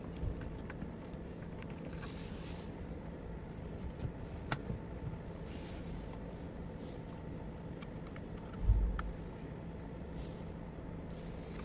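Faint clicks and scrapes of small plastic parts and a cable being handled over a steady low hum, with one dull thump about nine seconds in.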